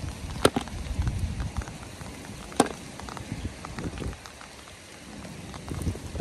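Heavy rain falling, a steady hiss with scattered drop patter. Two sharper taps stand out, one about half a second in and one about two and a half seconds in.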